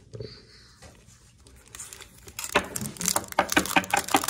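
Foil wrapper of a trading-card pack crinkling loudly as it is handled and opened, beginning about two and a half seconds in after a quiet stretch.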